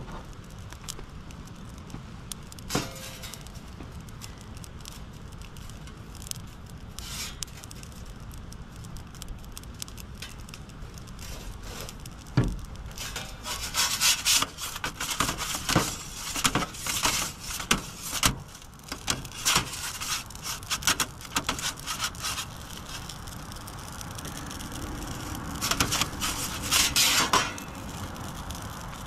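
A perforated metal pizza peel scraping and rasping over the stone floor of a charcoal pizza oven as it is slid under a baking pizza, in rapid strokes in two spells from about halfway through. Before that there is a steady low rush with a couple of single knocks.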